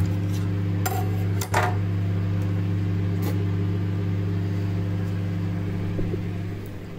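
Microwave oven running with a steady low electrical hum. A few sharp clicks and knocks come in the first few seconds, and the hum drops in level near the end.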